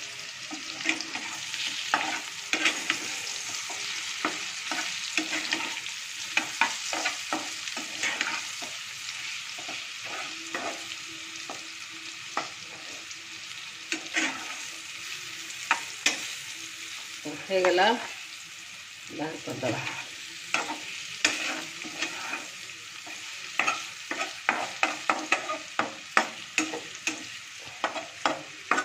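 Radish slices sizzling as they fry in oil in a non-stick wok, with a metal spatula scraping and clacking against the pan as they are stirred. The clacks come thick and fast near the end.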